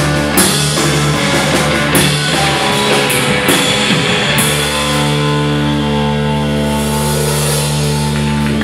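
Live rock band playing loud with drums, bass and guitar; about halfway through the drums stop and a held, droning chord rings on.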